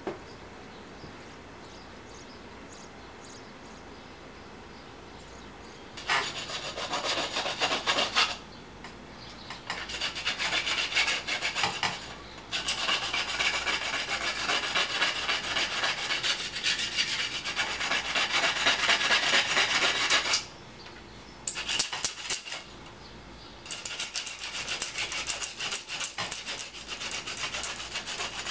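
Quiet room tone for the first few seconds, then a hand tool scraping along the edge of a drum hoop in long runs of fine, rapid strokes, with short pauses between runs.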